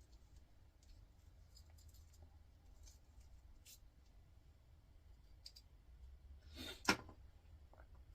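Faint small clicks of hand tools and copper winding wire as the last stubborn strands are worked out of a small electric motor's core, with one louder click near the end.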